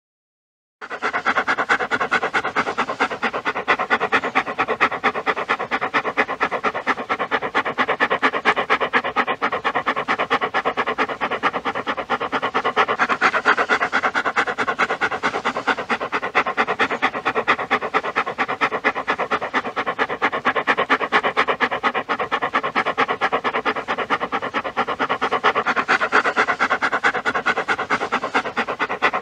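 A dog panting: fast, even, rhythmic breaths that start about a second in and go on without a break.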